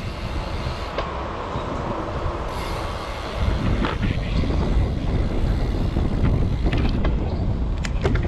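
Traffic noise of a city street heard from a moving bicycle, with wind rumbling on the microphone. There are a few sharp clicks near the end.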